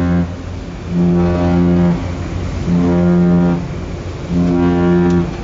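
Ship's horn sounding a series of short blasts, about a second each with brief gaps: three full blasts and the tail of another. Repeated short blasts like these are the danger signal that warns other vessels off. A steady low engine hum runs beneath.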